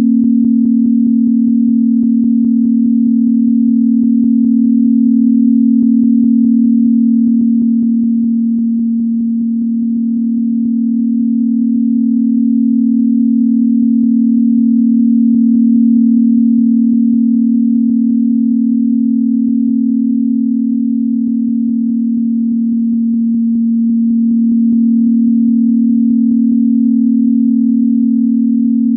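Synthesized low sine-wave tone, a steady electronic hum a little above 200 Hz, dipping slightly in loudness twice.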